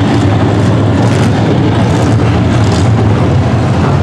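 Semi-late model dirt race cars' V8 engines running hard together at racing speed in a loud, steady drone as the pack laps the track.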